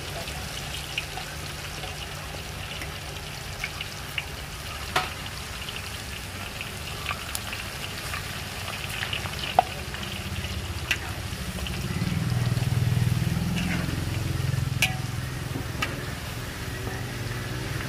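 Thin banana slices deep-frying in a wok of hot oil, the oil sizzling and bubbling steadily, with scattered sharp clicks of the metal wok spatula against the wok. A low engine hum swells in the background about two-thirds of the way through.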